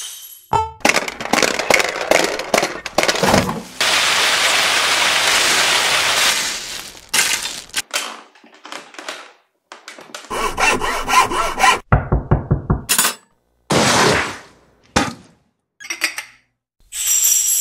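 A montage of short, unrelated sound effects cut one after another. There are knocks and scrapes, a long noisy rush lasting a few seconds, then a string of shorter bursts with gaps between them.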